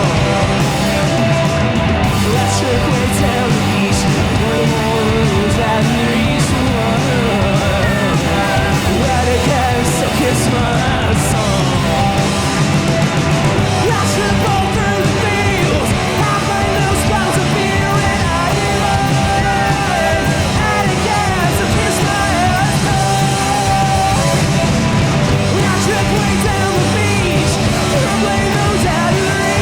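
Live rock band playing loud and steady throughout: electric guitar and drums, with vocals.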